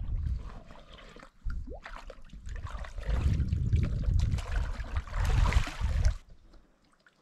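Water gurgling and sloshing as a collapsible water bag is pushed under and filled in a shallow stream, then lifted out with water trickling off it. The sound comes in uneven surges and cuts off abruptly about six seconds in.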